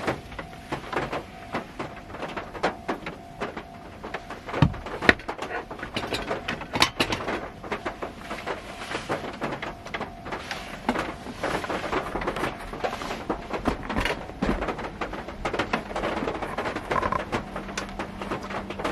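Raindrops striking the roof and windows of a car, heard from inside the cabin as dense, irregular tapping, with a few louder single knocks near a third of the way in.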